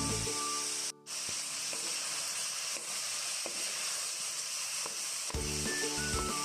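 Pork and chopped tomatoes sizzling as they fry in oil in a pan, with a few light clicks. Background music plays at the start and comes back about five seconds in.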